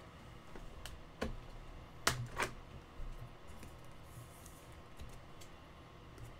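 A few scattered sharp clicks and taps from things handled on a desk, the loudest two close together about two seconds in, over a low steady hum.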